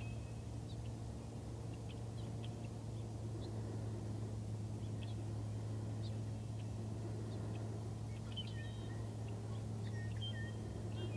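Marsh ambience: a steady low hum throughout, with scattered short, high chirps and calls from small birds that come more often in the last few seconds.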